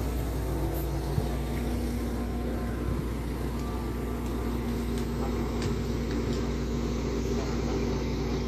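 Engine of a three-wheeled crane truck running steadily, with a brief knock about a second in.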